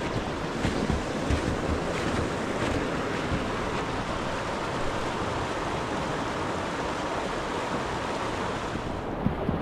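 Steady rushing noise outdoors, with snowshoe footsteps on snow falling about every three-quarters of a second during the first few seconds.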